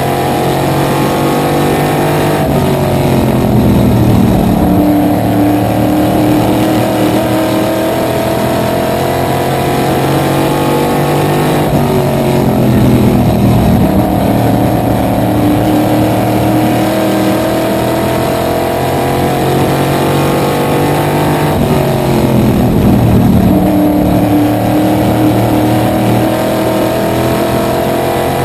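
Small-block supermodified V8 engine heard from the open cockpit at racing speed. Its pitch drops as the driver lifts into a corner, about every ten seconds, then climbs again as he gets back on the throttle.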